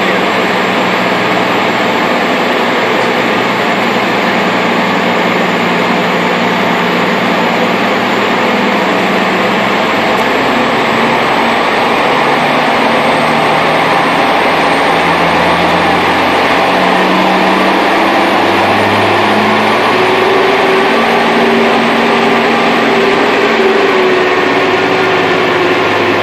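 Caterpillar C18 ACERT inline-six diesel pulling under heavy load, heard from inside the truck cab: a loud, steady drone with its engine tones shifting in pitch as it goes.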